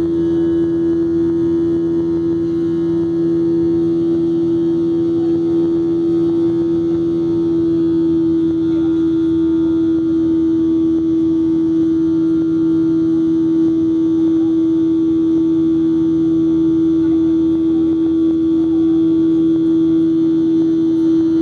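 Cabin sound of a Boeing 737-700 in its climb after takeoff: its CFM56 turbofan engines at climb power giving a steady drone with a strong, even hum running through it.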